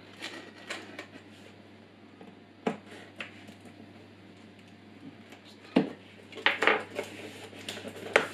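Utility knife scraping and slicing the packing tape on a cardboard box, with scattered knocks and clicks of the box and knife against the workbench; the sharpest knocks come in the second half, as the knife is put down and the box is pulled open.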